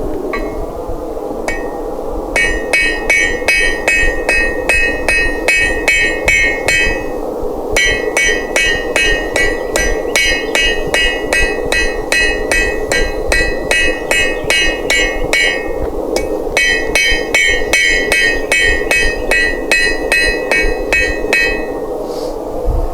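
Hammer striking hot steel on an anvil in three quick runs of blows, about three to four a second, each blow ringing. The smith is drawing out and tapering a square steel bar into a leaf's stem.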